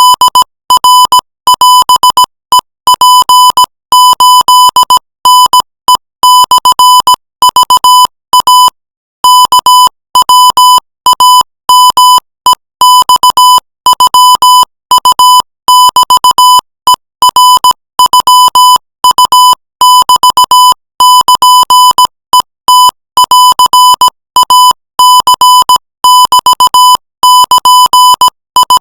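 Morse code sent at 20 words per minute as a single high-pitched beep tone keyed on and off in dots and dashes, spelling out Thai text. There is one longer pause, a word space, about a third of the way in.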